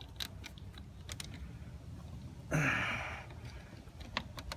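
A man's heavy exhale, like a sigh, about halfway through, among scattered light clicks and taps from handling small parts and tools.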